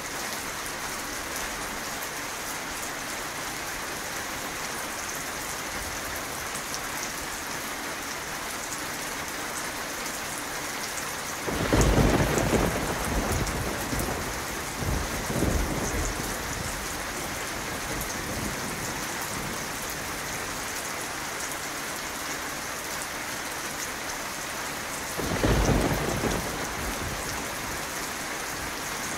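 Steady rain falling, with thunder: a loud clap about twelve seconds in that rumbles on in swells for several seconds, and a second, shorter rumble near the end.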